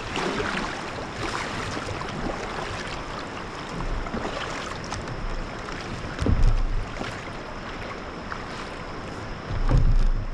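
Steady rush of river water through shoals, with wind buffeting the camera microphone in two louder gusts, about six seconds in and near the end.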